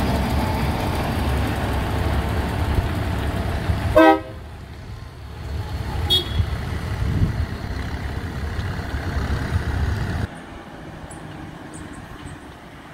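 A loaded sugarcane dump truck's diesel engine running as it pulls away, with one short horn toot about four seconds in. The engine sound drops away suddenly near the end.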